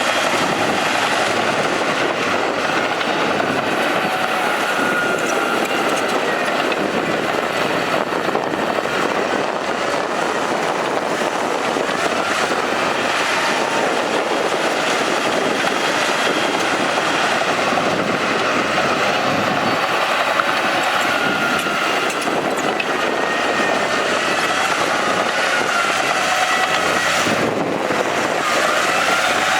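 Crawler bulldozer at work: its diesel engine runs steadily under load while the steel tracks clank, with faint wavering high squeals above the din.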